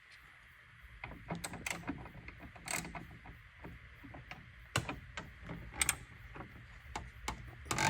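Irregular light clicks and clinks of hand tools and small metal parts being handled while a ground wire is fitted under a bolt on the car, with a louder clack near the end.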